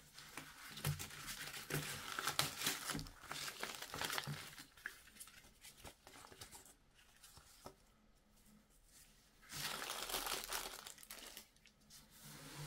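Paper instruction manual and leaflets rustling and crinkling as gloved hands pull them from the case's mesh pocket and leaf through them. The rustling is loudest in the first few seconds, goes quieter, then comes back in a second loud burst near the end.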